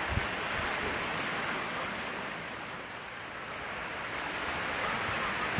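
Steady background hiss with a brief low knock just after the start.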